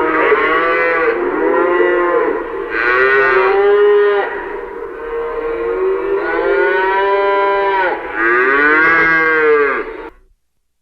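Cow mooing, a run of loud, long calls one after another, each rising and then falling in pitch, stopping about ten seconds in.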